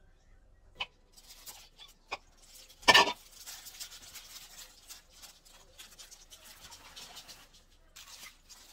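A few sharp clicks and one loud knock about three seconds in. Then a plastic-gloved hand mixes wet seaweed and cucumber strips in a stainless steel bowl, a steady scratchy rustle of glove against wet leaves.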